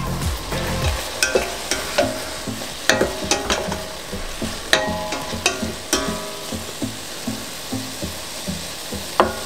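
Wooden spatula stirring chunks of apple in a stainless steel pot, with repeated knocks and scrapes against the pot, some ringing briefly. Under it, a steady sizzle from the apples simmering in white wine.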